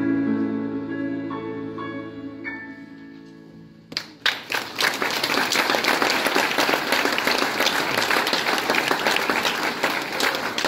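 A choir holds its last chord, which fades away over about four seconds; then the audience breaks into applause, which runs on to the end and is the loudest sound.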